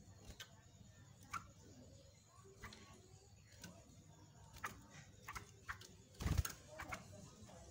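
A caged yellow-vented bulbul moving about its cage: scattered light taps and clicks, with one louder thump about six seconds in.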